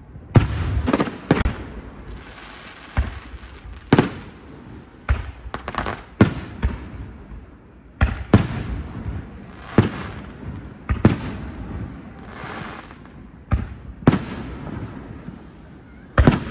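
Aerial firework shells bursting overhead: a string of sharp bangs at uneven intervals, about fifteen in all, some coming in quick pairs.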